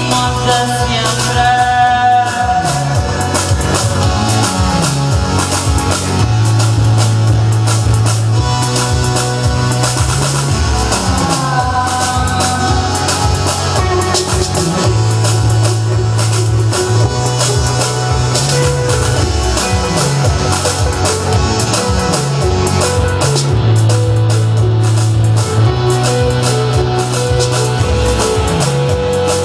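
Live rock band playing an instrumental passage: drum kit, bass and electric guitar, with a bass line that repeats in sections every few seconds.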